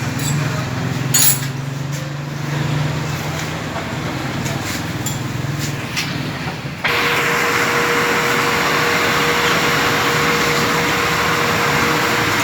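Workshop noise: a few sharp metallic clinks of hand tools over a low steady hum. About seven seconds in, the sound switches abruptly to a louder steady hiss with a constant mid-pitched tone.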